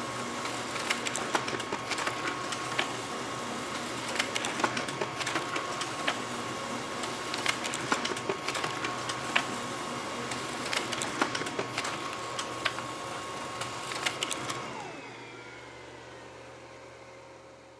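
Laser printer running, with a steady whine and many irregular clicks and ticks as paper feeds through. About fifteen seconds in the clicking stops, the whine falls in pitch as the mechanism winds down, and a quieter hum fades away.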